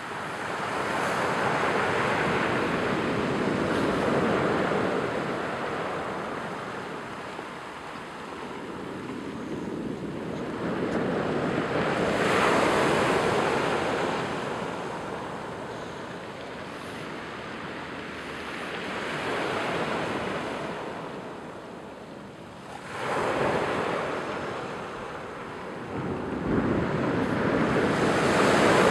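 Surf breaking and washing over a cobble and pebble beach. The sound swells and fades as each wave comes in, about five times, with one wave breaking suddenly about two-thirds of the way through.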